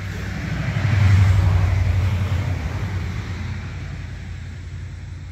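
A vehicle passing by: a low rumble with road noise that swells to a peak about a second in, then slowly fades away.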